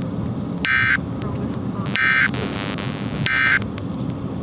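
Emergency Alert System end-of-message data tones: three short bursts of SAME digital code, each about a third of a second long and about 1.3 seconds apart, signalling that the alert message has ended. A steady background hiss runs underneath.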